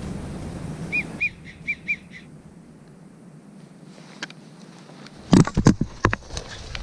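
Four or five short whistled wigeon notes, each rising and falling, about a second in. A quick cluster of loud knocks follows a little over five seconds in.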